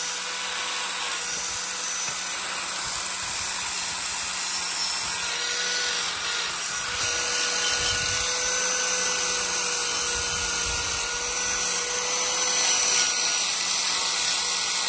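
Electric grinder grinding steel: a steady, harsh hiss with a constant motor whine running under it, without a break.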